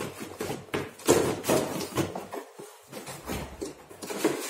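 Cardboard drone box being opened by hand, its inner tray slid out of the printed sleeve: irregular scraping, rustling and knocks of cardboard, loudest about a second in.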